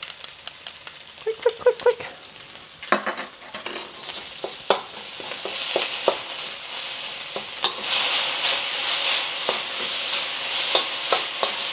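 Garlic, ginger and dried chilies sizzling in hot oil in a wok while a metal spatula stirs them, clicking and scraping against the pan. The sizzle swells about halfway through and stays loud as the stirring goes on.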